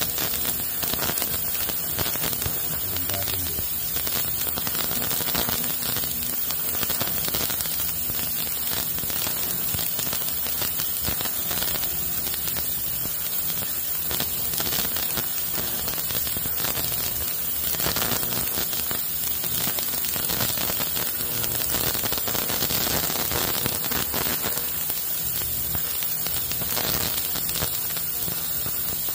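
Steady, loud static-like hiss with a faint low hum underneath.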